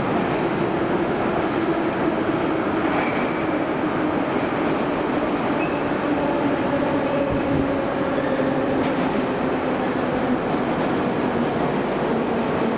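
Metro train running into an underground station along the platform. The wheels and running gear keep up a steady rumble, with faint whining tones over it.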